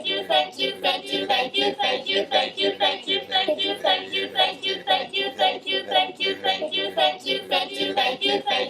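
A high voice chanting "thank you" over and over in a fast, even, sing-song rhythm.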